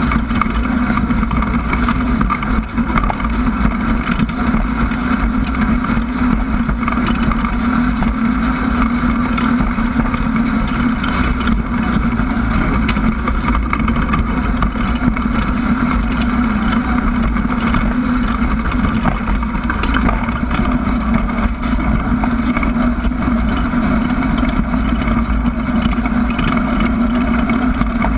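Class 1600 off-road race buggy's air-cooled VW engine running steadily at speed, a constant drone over a rush of wind and road noise, with small knocks scattered throughout.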